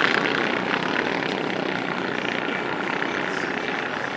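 Engines of a pack of small off-road race trucks running on the track, a steady drone that eases slightly.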